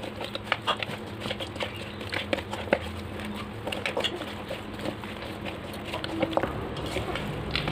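A hand kneading spice-coated pieces of pork in a stainless steel bowl: a quick, irregular patter of wet squelches and small knocks of meat against the steel.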